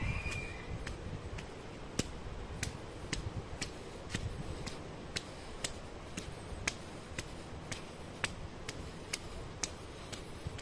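Footsteps of a person walking on a concrete path in cycling shoes, the cleats clicking sharply and evenly about twice a second.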